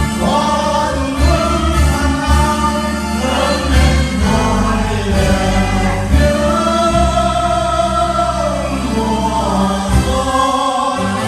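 A group of voices singing a song together over amplified backing music, with long held notes.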